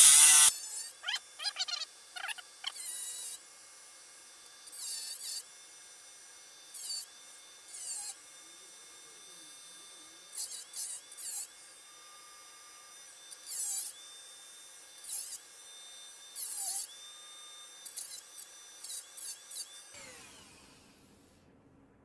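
High-speed rotary tool with a thin cutoff wheel, set to about 15,000 RPM, cutting and shaping a steel lock-pick blank held in a vise. A steady high whine that dips in pitch each time the wheel bites into the metal, with short louder spells of grinding, the loudest at the very start. Near the end it is switched off and spins down.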